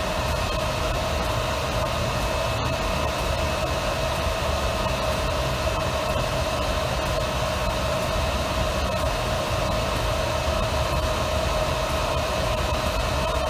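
Cooling fan of a freshly powered-up chiller controller running steadily: an even whir with a held whine.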